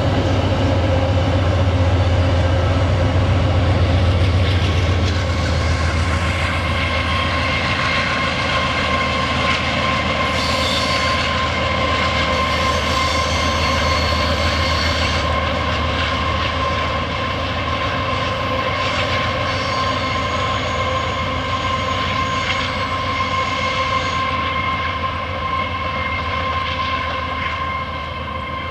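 Diesel locomotive hauling empty iron-ore hopper wagons round a curve, with a steady high wheel squeal over the train's rumble. A strong low engine rumble eases after about five seconds.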